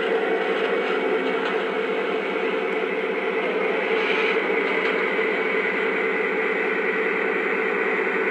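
Lionel Legacy F7 model diesel locomotives, the A and B units of a Louisville & Nashville set, running along the track with a steady mechanical running sound.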